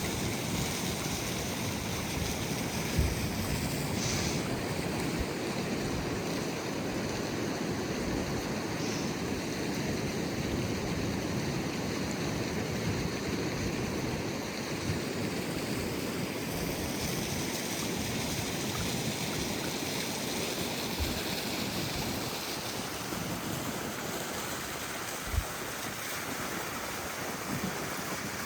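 Ocean surf washing steadily onto the beach, with a few brief low thumps of wind on the microphone.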